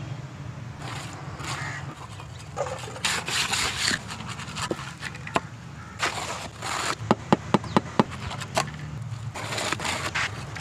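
Trowel scraping and smoothing wet concrete in a kerb-stone mould, in repeated strokes, with a quick run of sharp taps a little past the middle.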